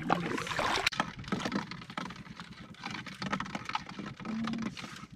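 Irregular light clicks and knocks of fishing gear being handled in a small boat.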